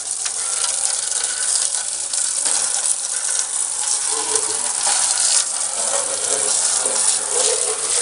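Water from a garden hose spraying and splashing steadily onto a bird cage's base as it is rinsed, an even hiss.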